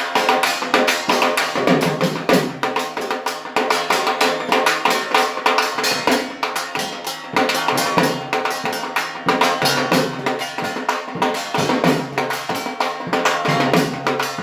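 Dhak, the Bengali barrel drum, beaten with sticks in a fast, driving rhythm of dense strikes.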